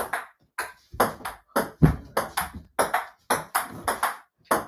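A table tennis rally on a mini table: the plastic ball clicks in quick alternation off the paddles and the tabletop, about three to four hits a second.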